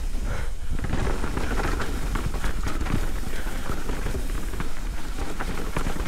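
Trek Slash 8 full-suspension mountain bike riding fast down a loose dirt and gravel trail: steady tyre noise over the stones with frequent rattles and clicks from the bike, and wind rush on the chin-mounted camera.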